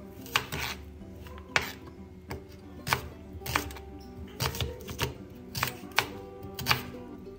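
A kitchen knife slicing through an onion and knocking on a plastic cutting board, in unevenly spaced cuts about one to two a second, over soft background music.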